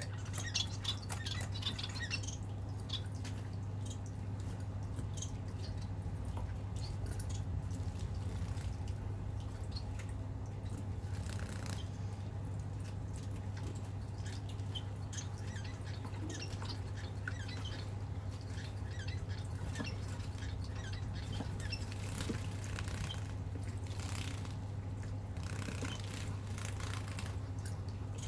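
Society finches bathing in a shallow water dish: small splashes and drips with wing flutters and occasional short high chirps, over a steady low hum.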